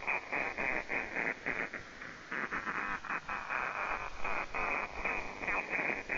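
Shortwave SDR receiver audio on the 40-metre amateur band: a single-sideband voice, thin and narrow in tone, over receiver hiss, in short bursts like talk but not clearly intelligible. It cuts off suddenly at the end as the radio is retuned.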